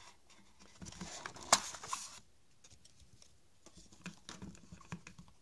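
A cardboard insert being worked out of a phone box: scraping and rustling of card for about a second, with one sharp snap in the middle, then a few light, scattered taps and clicks.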